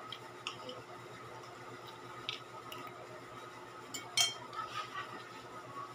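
Eating sounds from fried chicken pulled apart by hand and chewed: scattered small clicks and crackles of crispy skin, with the sharpest crackle about four seconds in.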